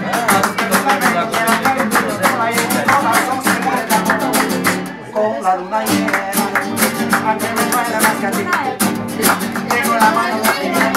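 Two acoustic guitars strummed in a fast flamenco-style rhythm, with a man singing along. The playing thins briefly about five seconds in, then picks up again.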